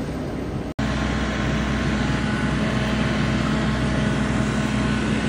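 Steady mechanical hum of airport ground equipment, with a low drone and a few steady whining tones. The sound cuts out abruptly for an instant about three quarters of a second in.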